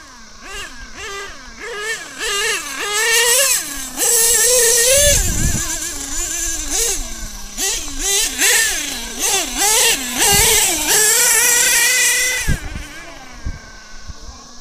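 Modified Picco .28 P3 two-stroke nitro engine in an HPI Savage X RC monster truck, revving in repeated throttle blips with the pitch rising and falling about twice a second. It grows loud as the truck runs close by in the middle, holds one high rev briefly, and fades near the end. A few low thumps come in between.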